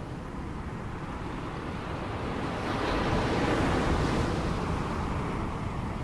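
Ocean waves: a steady wash of surf, with one wave swelling up about halfway through and easing off toward the end.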